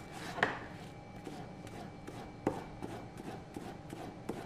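Kitchen knife chopping a peeled cucumber into cubes on a plastic cutting board: quick, even knocks of the blade on the board, about three a second, two of them louder.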